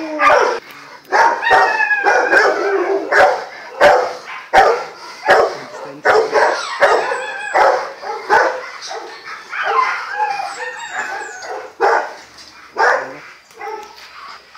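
Dogs barking repeatedly in short bursts, mixed with higher-pitched yips and whines.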